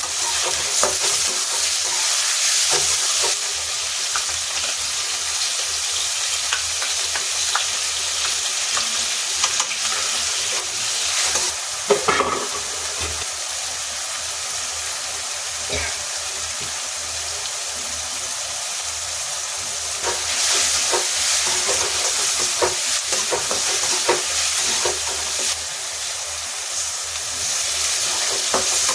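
Potato and cauliflower sizzling in hot oil in a pan, with a spatula stirring and scraping in scattered clicks. There is one sharper knock about twelve seconds in.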